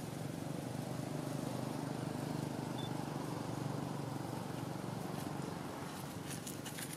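Steady low rumble of an engine running, swelling slightly in the middle and easing near the end, with a few faint clicks in the last second.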